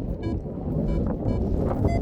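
Strong wind buffeting the microphone, with a paragliding variometer giving short, evenly spaced beeps about twice a second.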